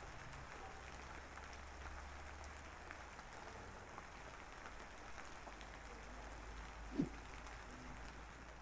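Faint steady hiss with scattered light ticks, and one short low thump about seven seconds in.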